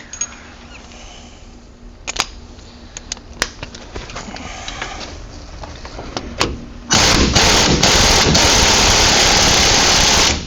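Sockets and tools clinking a few times. About seven seconds in, a power impact wrench starts running loudly for about three and a half seconds, then stops.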